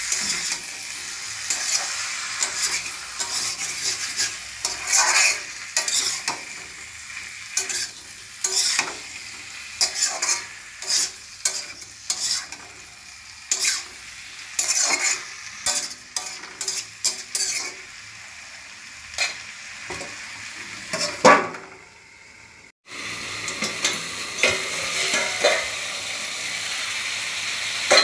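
Green jackfruit and potato chunks sizzling in oil in a wok, with a metal spatula scraping and knocking against the pan over and over as they are stirred. The sizzling drops out suddenly about three quarters of the way through, then comes back.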